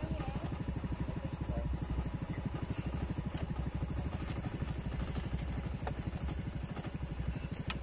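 Side-by-side UTV's engine idling with an even, fast pulse, and a few faint clicks over it.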